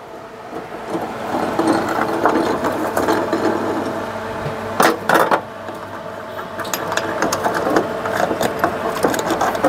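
Ratchet wrench on a long extension clicking rapidly as it backs out the bolt of a diesel fuel filter housing, with two sharper metal knocks about five seconds in.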